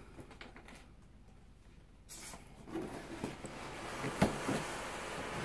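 Cardboard drone box and its packaging being handled: quiet at first, then rustling and sliding from about two seconds in, with a sharp knock about four seconds in.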